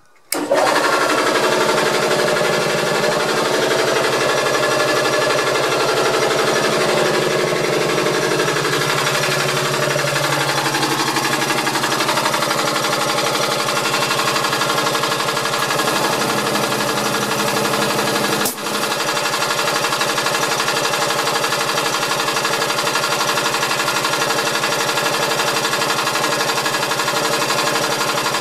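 Air compressor of a ČSD class 451 electric multiple unit, switched on from the driver's desk. It cuts in suddenly and runs loud and steady with a fast mechanical rattle. Its tone shifts during the first ten seconds and then settles, with a brief dip about two-thirds through.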